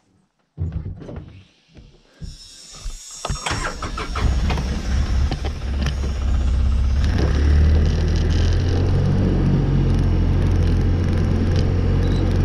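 A vehicle engine starts: a few uneven pulses in the first two seconds, then it catches and settles into a steady low running.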